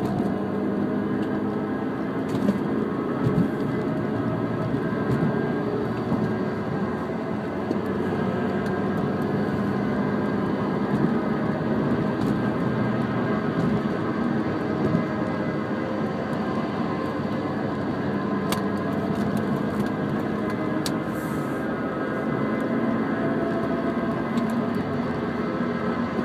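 Mini Cooper S R53's supercharged four-cylinder running steadily, a droning engine note under a grinding noise, with a few faint clicks. The owner cannot place the noise; he guesses the clutch, which has begun to slip, since the wheel bearings, brakes and tyres are new.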